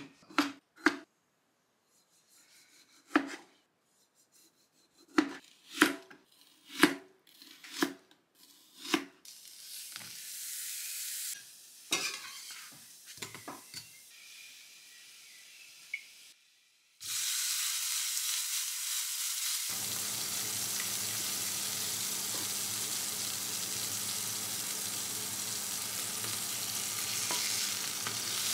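A kitchen knife slicing pickle on a plastic cutting board, about ten sharp knocks over the first nine seconds. From a little past halfway, ground meat for a burger patty sizzles steadily in a frying pan, with a low steady hum underneath.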